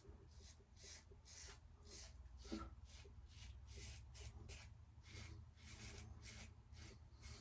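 Faint, repeated scraping of an open-comb injector safety razor drawn through lathered three-day stubble: short strokes, about two or three a second, on the first pass.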